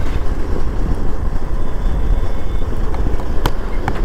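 Steady low rumble of a road vehicle on the move, with wind buffeting the microphone and a few short clicks in the last second.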